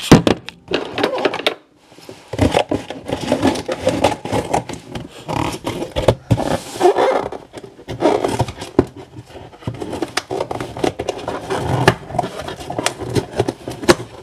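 Cardboard shipping box being worked open by hand: repeated scraping, rustling and clicks, with a short pause a couple of seconds in.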